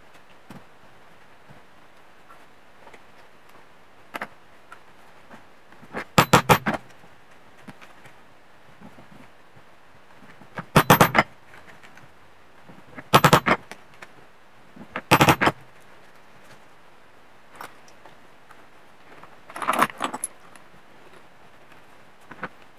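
Five short runs of quick, light hammer taps on a metal engine part, a few seconds apart, each run several strikes with a slight metallic ring. This is paper gasket material being cut to shape by tapping its edge against the metal flange.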